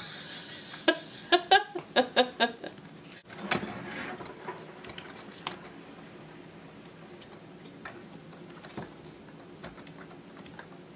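A short run of laughter about a second in, then a plastic comb drawn through a toy pony's long synthetic mane and tail, making a faint scratchy rustle with small ticks.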